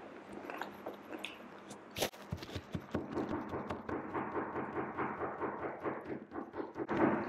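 A crisp black Jolo chip is bitten with one sharp crunch about two seconds in, then chewed with rapid, regular crunching.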